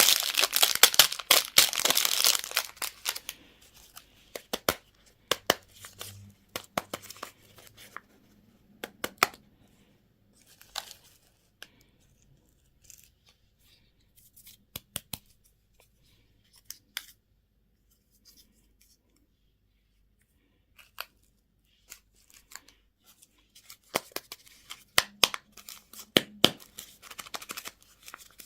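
Candy or toy packaging being torn open, a dense rustle over the first few seconds, then scattered short clicks and taps of the packaging being handled, with quiet gaps and a busier run of clicks near the end.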